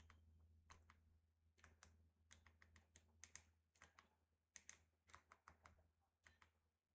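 Faint, irregular clicking of remote-control buttons being pressed, two or three clicks a second.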